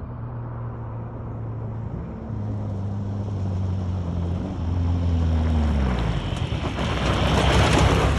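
A motor vehicle's engine running steadily, its pitch dropping about five seconds in, with noise building louder toward the end.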